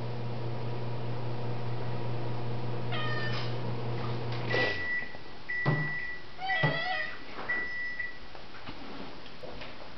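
Domestic cat meowing a few times, with short rising-and-falling calls. A steady appliance hum runs until about halfway and then stops, followed by four short electronic beeps.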